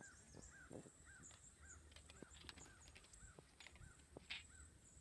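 Faint outdoor ambience: a bird repeats a short call about twice a second, each note rising and then falling, with a few faint clicks.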